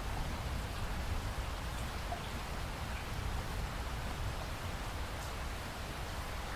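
Steady rain falling: an even hiss with a low rumble underneath and a few faint drop ticks.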